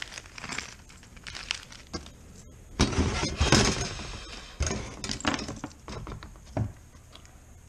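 Small metal rivets clinking and clattering as a handful is tipped out and handled, with a denser rattle about three seconds in.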